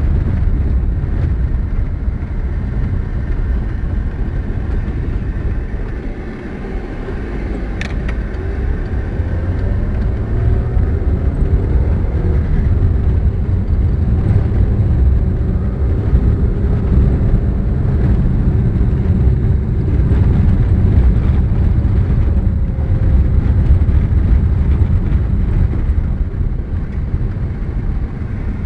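Steady low rumble of a car driving on a rough gravel road, heard from inside the cabin: tyre and road noise with the engine running. The engine note rises once or twice around the middle, and there is a single sharp click about eight seconds in.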